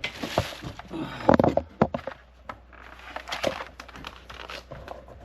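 Plastic safety helmet being handled and put on: irregular rustling and crinkling with scattered clicks and knocks, the sharpest a little over a second in.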